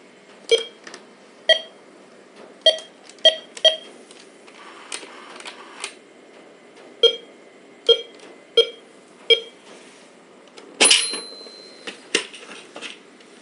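A toy electronic cash register beeping as its keypad buttons are pressed: about nine short beeps, spaced irregularly. Near the end comes a louder clatter with a ringing tone held for about a second.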